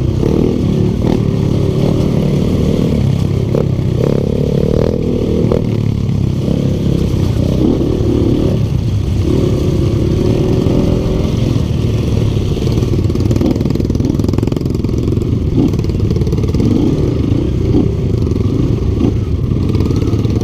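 Yamaha Vixion trail bike's single-cylinder four-stroke engine running as it is ridden, its pitch rising and falling with the throttle. The owner says the engine is leaking compression and pulls weakly.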